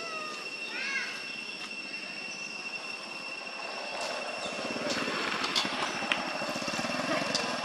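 A baby macaque drinking from a carton held to its mouth. A rapid sucking noise grows louder from about four seconds in, over a steady high whine, with a few short chirps about a second in.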